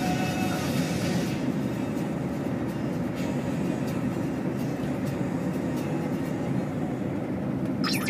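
A road vehicle driving at speed: steady low rumble of engine and tyres on the asphalt.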